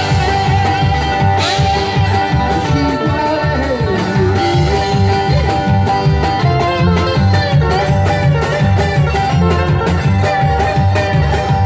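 Live trio music: acoustic guitar, upright bass and drums playing together with a steady beat.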